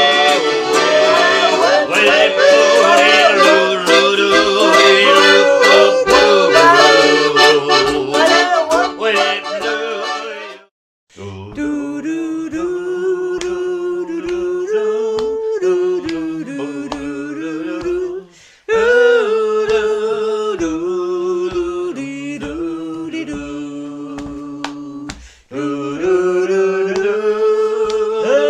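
Accordion and ukulele accompany group singing in a lively folk song. After a cut, the voices go on singing unaccompanied in harmony, holding and stepping between notes over a soft, even tapping beat.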